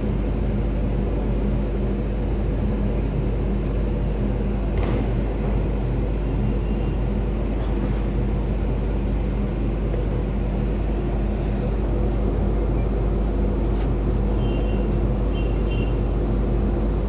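A large engine running steadily with a low rumble and a constant hum.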